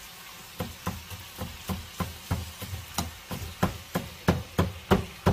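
Kitchen tongs jabbing and knocking at a frozen block of marinated webfoot octopus in a nonstick frying pan to break it apart: sharp knocks about three times a second, louder in the second half.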